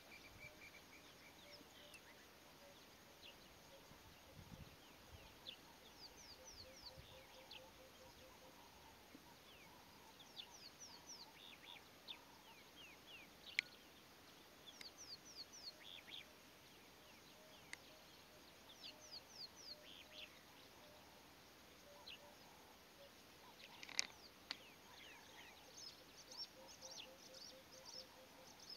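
Quiet outdoor ambience with small birds chirping faintly in quick series of short descending notes, and a soft low pulsed trill now and then. Two sharp clicks stand out, one about halfway through and one near the end.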